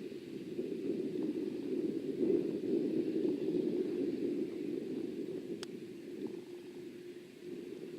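Boeing 787-8 jet engines, a low rumble that swells over the first few seconds and then slowly fades. A single sharp click comes about five and a half seconds in.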